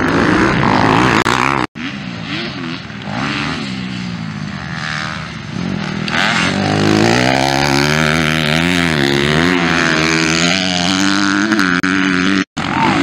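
Dirt bike engines revving, their pitch climbing and falling repeatedly as the riders work the throttle. The sound cuts out abruptly twice, for an instant each time.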